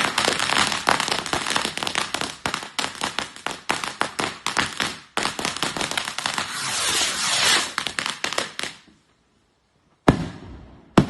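Fireworks crackling in a dense, rapid stream of pops for about nine seconds, then cutting off. After a second of silence come two sharp bangs about a second apart.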